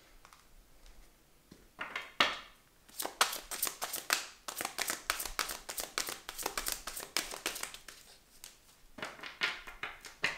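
A deck of tarot and oracle cards being shuffled by hand: a rapid run of crisp card flicks and clicks from about three to eight seconds in, then cards sliding as one is laid down on the table near the end.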